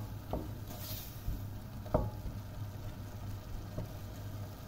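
Lamb pieces sizzling as they sauté in a stainless steel pot, stirred with a wooden spoon that knocks against the pot a few times, the loudest knock about two seconds in. A steady low hum runs underneath.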